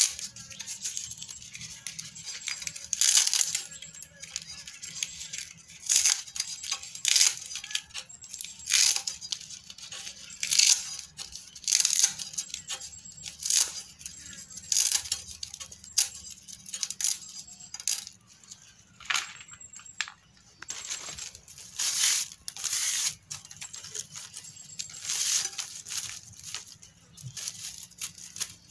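Pandan leaves being sliced against an upright fixed blade: a string of crisp cutting and tearing strokes, uneven, about one or two a second.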